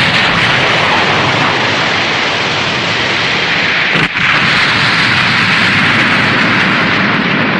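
Tokusatsu sound effect: a loud, steady rushing noise with no clear pitch, like a long blast or fire roar. It briefly dips about four seconds in, then carries on.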